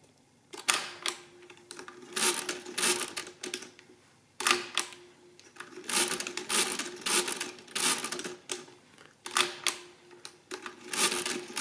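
Facit CM2-16 pinwheel mechanical calculator being hand-cranked turn after turn, about one turn a second. Each turn is a short whirring clatter of gears and clicks as the pinwheels turn and the registers count up during a multiplication.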